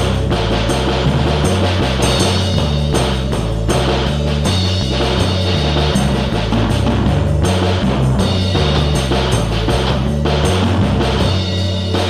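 Background music with a steady drum-kit beat and a stepping bass line.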